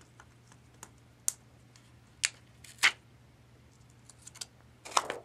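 Thin plastic screen-protector film on a laptop screen being peeled, giving a few sharp, separate crackling snaps, with a small cluster near the end.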